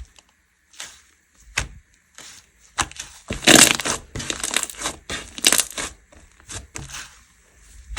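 Hands squishing and pressing slime, giving irregular sticky crackles and pops, loudest in two bursts about halfway through and again near five and a half seconds.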